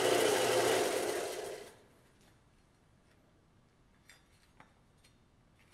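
Central Machinery belt sander running with an even, hissing sanding noise that dies away about a second and a half in, as the machine is shut off. After that there are only a few faint clicks of the small sheet-metal piece being handled.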